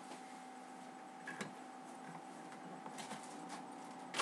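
Quiet room tone with a steady faint electrical hum and a few soft clicks and taps, with a sharper click at the very end.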